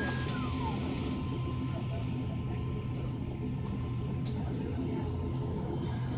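Steady engine drone of a high-wing turboprop airliner heard from inside the cabin as it taxis, with a thin high tone that slides down and stops about half a second in.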